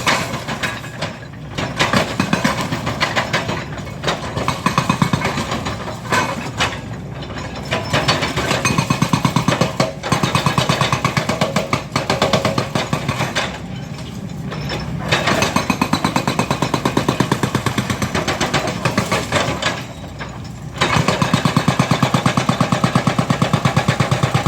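Demolition breaker hammering concrete with rapid, even strokes in long bursts, broken by short pauses, over a running machine engine.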